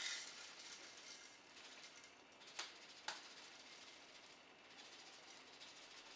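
Rolled oats trickling from a bag into a plastic blender beaker, a faint steady hiss with two light clicks about two and a half and three seconds in.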